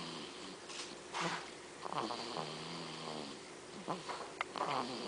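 Snoring: several slow breaths in a row, some carrying a low droning tone held for about a second.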